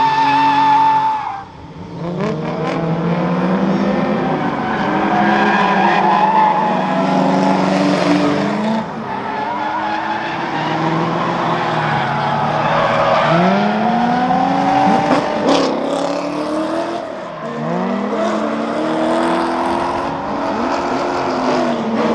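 Drift cars' engines revving up and down again and again as they slide sideways through the corners, with tyre squeal.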